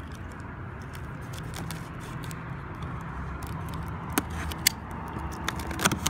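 Box cutter slitting the packing tape on a cardboard box and the box flaps being pulled open, with scattered light scrapes and a few sharp cracks of tape and cardboard in the second half, over a steady low background rumble.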